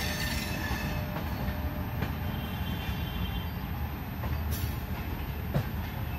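Passenger train coach running along the track, heard from its open doorway: a steady rumble and rattle with a few sharp clicks of the wheels over rail joints, and a faint high wheel squeal in the middle.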